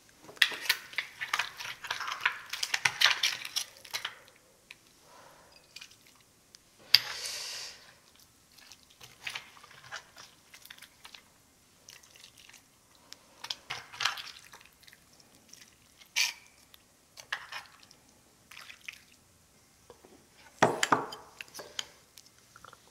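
A metal ladle scooping seafood stew and pouring it into a bowl, with liquid splashing and dripping. Scattered clicks and clinks of tableware run throughout.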